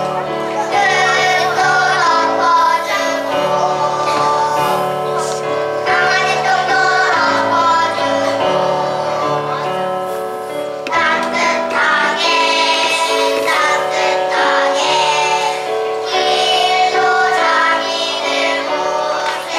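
A group of young children singing a song together over an instrumental accompaniment, with a short break between phrases about halfway through.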